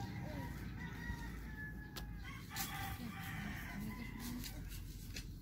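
A rooster crowing, its call standing out loudest a little over two seconds in.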